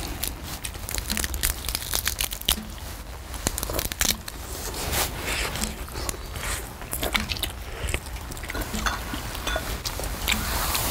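Close-up eating sounds of people chewing and crunching through crab and prawn shells from a seafood stew: a dense string of irregular crunches and sharp clicks, over a low steady rumble.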